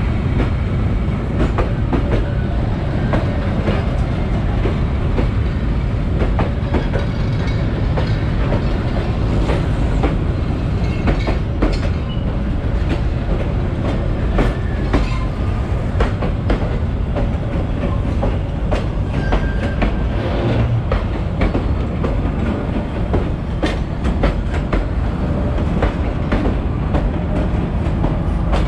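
Vietnam Railways passenger coaches rolling past at close range: a steady rumble of wheels on rail, with repeated clacks as the wheels cross rail joints.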